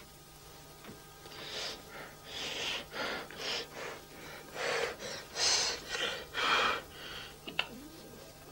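A person breathing hard in a series of short, noisy huffs and gasps, starting about a second in.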